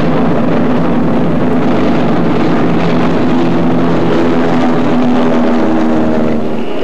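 PBY Catalina flying boat's twin radial engines running at takeoff power through the takeoff run off the water, a loud steady propeller drone over a rushing noise, cutting off abruptly just before the end.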